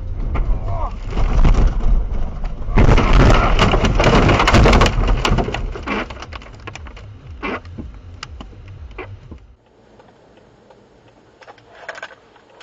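A car ploughing off the road into deep snow, heard from inside the car: a loud rushing rumble with snow pelting the windscreen and body in a rain-like patter of many small knocks. It is loudest for a couple of seconds, then dies away, and the sound cuts off sharply about nine and a half seconds in.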